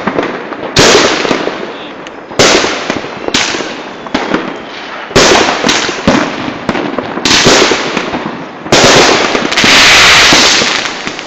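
Aerial fireworks going off: about six loud bangs one to two seconds apart, each trailing into crackle, then a dense crackling burst lasting about two seconds near the end.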